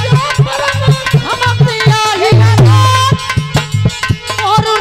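Indian folk devotional music: a hand drum plays a quick rhythm with booming bass strokes, one of them held long about halfway through, under a melody line with a man singing.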